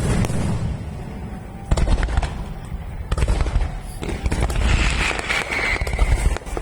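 Aerial fireworks shells bursting in quick succession during a finale barrage: deep rolling booms with sudden loud onsets and dense crackling, and a short high whistle about five seconds in.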